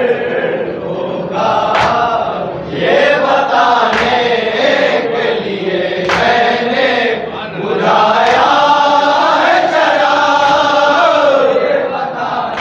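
A group of men chanting an elegiac salam (mourning lament) together in one melody, with a sharp beat about every two seconds.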